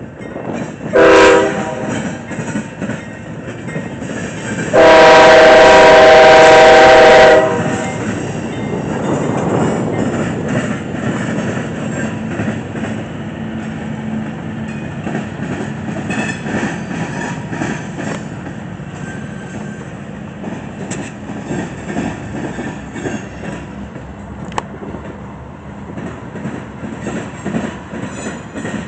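Horn of a CSX C40-8W (GE Dash 8-40CW) diesel locomotive: a short blast about a second in, then a long, very loud blast from about five to seven seconds in. After that the locomotives and a train of covered hopper cars rumble past, with the wheels clicking over the rail joints.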